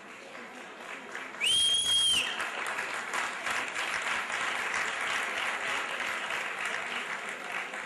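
Audience applauding, with one loud, high whistle-like tone cutting through about a second and a half in.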